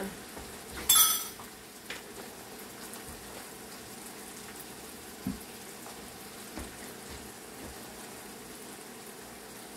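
Kitchen cooking sounds: a steady low hiss of food cooking on the stove, with a loud metallic clink of a utensil about a second in and a few soft knocks afterwards.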